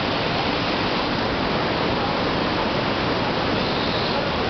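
Waterfall's white water pouring over rocks: a steady, unbroken rush.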